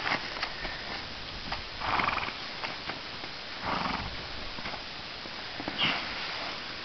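A horse rolling in snow, scrambling up and dropping down again: three short, noisy bursts about two seconds apart, from her body thrashing on the snow and her breath.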